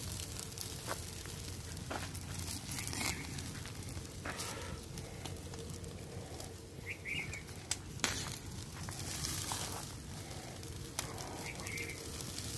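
Charcoal and wood fire crackling under a whole pig roasting on a spit, with irregular sharp pops. A short high chirp comes three times.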